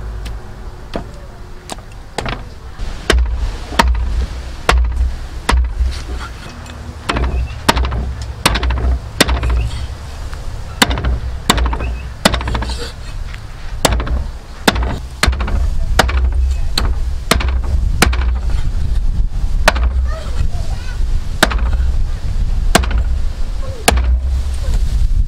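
Meat cleaver chopping raw duck on a thick wooden chopping block: repeated sharp chops, each with a heavy thud from the block, irregular at roughly one or two a second.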